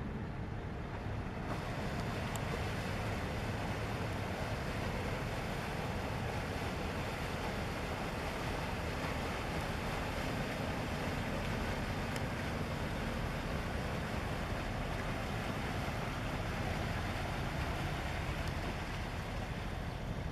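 Steady outdoor rumble of an inland cargo ship under way, mixed with wind rushing on the camera microphone. A slight hiss joins in about a second and a half in.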